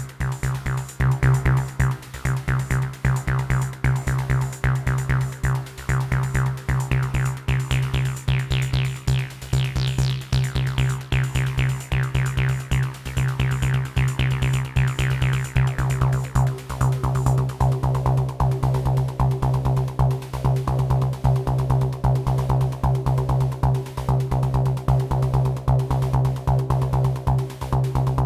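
Elektron Analog Rytm drum machine playing an improvised techno pattern: a steady pulse of drum hits with fast ticking percussion over a held low bass tone. Its bright top end sweeps up to a peak about ten seconds in, then closes back down by about sixteen seconds.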